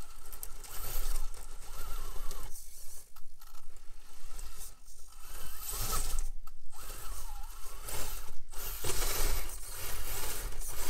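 Micro-scale RC rock crawler's electric motor and geared drivetrain whining under throttle, the pitch wavering as it climbs. The whine stops and starts several times.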